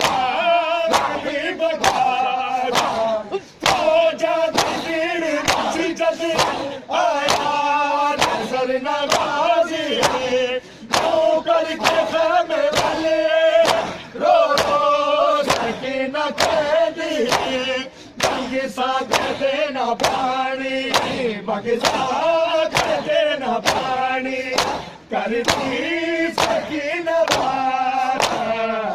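Men chanting a nauha in chorus, lamenting Ghazi Abbas, while beating their bare chests in matam. The hand slaps land in a steady rhythm about twice a second under the singing, and the chanting pauses briefly between lines.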